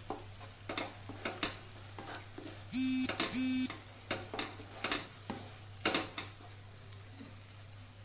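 Wooden spatula stirring and scraping a thick banana-and-jaggery mixture around a nonstick pan in irregular strokes, with a faint sizzle. Two short electronic beeps, close together, sound about three seconds in.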